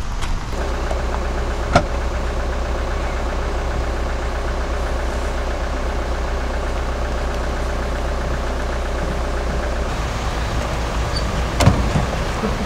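Car engine running steadily at idle, with a single click about two seconds in and a few knocks near the end.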